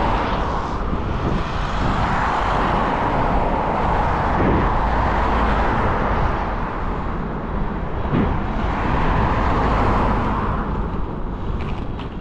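Steady rushing noise of road traffic, swelling and easing over a few seconds.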